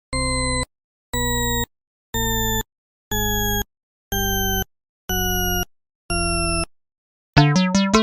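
Electronic beep tones, seven in a row about once a second, mostly stepping a little lower in pitch each time, with a buzzy low hum under each beep. Near the end, keyboard music with quick plucked notes starts.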